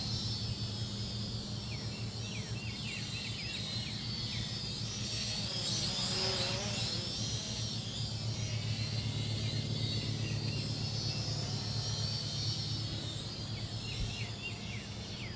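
Small quadcopter's propellers whining, the pitch wavering up and down as it manoeuvres and swelling for a few seconds midway, over a steady low hum, with repeated short insect chirps.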